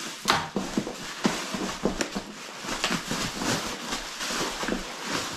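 Packaging being rustled and scraped inside a cardboard box as hands work the contents loose: irregular crinkles, scrapes and sharp cracks of plastic and cardboard.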